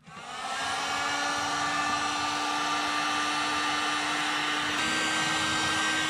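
Electric heat gun switched on, its fan and motor spinning up to a steady whine over a rush of blown air, with a small step up in pitch about five seconds in.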